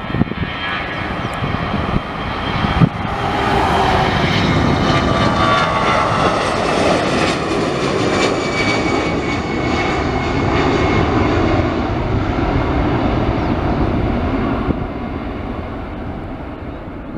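An Airbus A320-214's twin CFM56-5B4/P turbofan engines at takeoff power during its takeoff run and lift-off. A loud jet roar swells about three seconds in, with tones falling in pitch as the airliner passes, then eases as it climbs away near the end.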